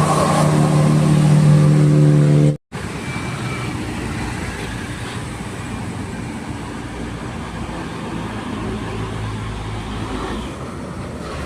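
Road vehicle sounds: a steady pitched drone that cuts off suddenly about two and a half seconds in, followed by a vehicle running amid traffic noise.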